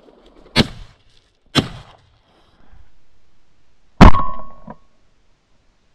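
A Beretta shotgun fired once about four seconds in: a sudden, very loud blast with a short ringing tone after it. Two lighter sharp knocks come before it, in the first two seconds.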